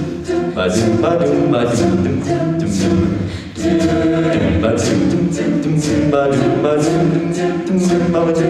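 Mixed a cappella vocal group singing with microphones: a male lead voice over sustained backing harmonies, with crisp vocal percussion keeping a steady beat.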